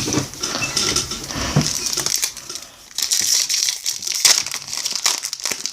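Foil wrapper of a Topps baseball card pack crinkling and tearing as it is opened and handled, with a few sharp knocks among the crackle.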